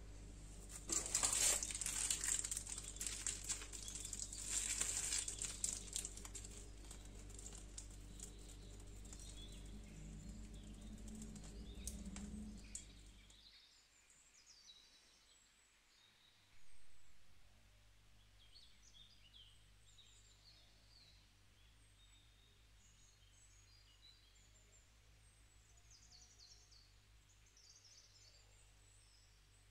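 Faint rustling over a low hum for about thirteen seconds. The hum then cuts off, a single short thump follows a few seconds later, and after that there is only faint bird chirping.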